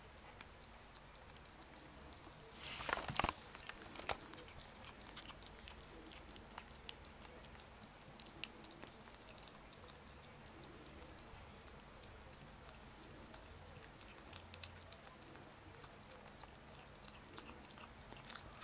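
A cat eating soft, crumbly food from a plate: faint, irregular small clicks and smacks of chewing and licking. A brief louder rustle with a couple of knocks comes about three seconds in.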